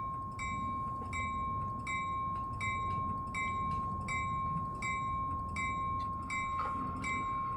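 Simulated locomotive bell from the LokSound sound decoder in a Metra bilevel cab coach model, ringing steadily at about two strokes a second through the model's small speaker, over a steady high-pitched hum.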